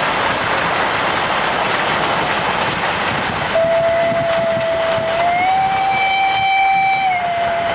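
Steam-hauled goods train of four-wheeled wagons rumbling and clattering over the rail joints. About halfway through, the steam locomotive's whistle sounds one long note, stepping up slightly in pitch, then dropping back.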